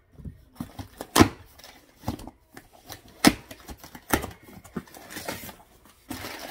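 A cardboard shipping box being opened and handled: sharp knocks and taps as the box and its contents are moved, with light rustling between them. A longer scraping rustle of cardboard starts near the end.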